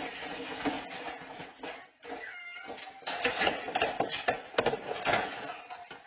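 A cat meowing, with pitch-gliding calls about two seconds in, over a dense noisy background scattered with knocks.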